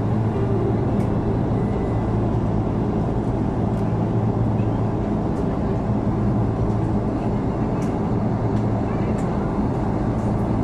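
Steady drone inside an airliner cabin in cruise: the engines and the rush of air along the fuselage, with a few faint clicks.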